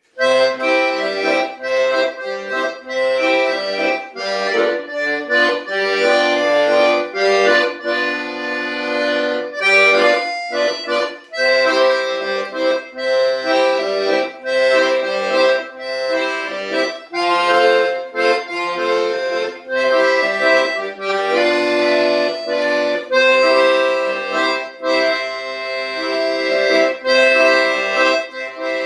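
Piano accordion playing a lively tune: a right-hand melody over chords, with bass notes from the left-hand buttons, pausing briefly twice.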